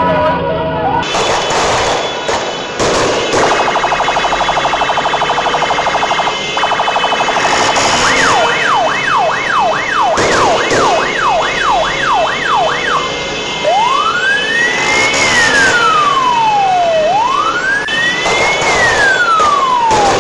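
An emergency vehicle's electronic siren cycles through its tones: first a fast pulsing tone, then a rapid yelp sweeping up and down about twice a second, then a slow wail rising and falling twice. Several sharp bangs break through it.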